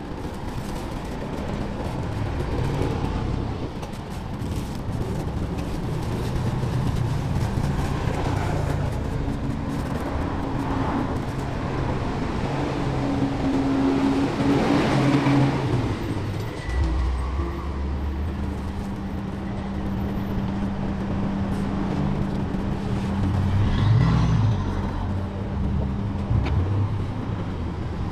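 Street traffic: vehicle engines running close by, a continuous low rumble with a steady hum that shifts in pitch a few times.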